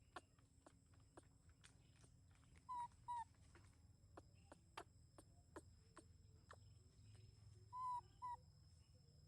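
A baby monkey gives short, high squeaky calls in two pairs, about three seconds in and again about eight seconds in, over faint scattered clicks.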